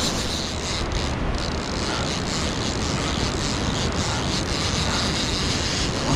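Steady rush of surf washing onto a sandy beach, with wind buffeting the microphone as a low rumble.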